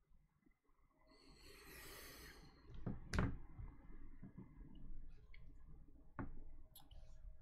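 Faint handling of trading cards and their foil pack wrappers: a brief soft crinkle, then a sharp click about three seconds in and a few lighter clicks and taps near the end.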